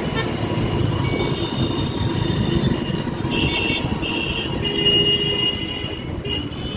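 Motorcycle riding through city traffic: steady engine and road noise. Short high-pitched tones sound twice in the middle, about three and five seconds in.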